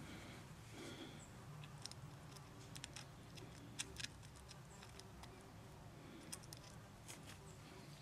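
Faint, scattered small clicks and taps of a thin metal pick against a chainsaw carburettor body as the inlet needle valve is worked out of its seat. Under them is quiet room tone.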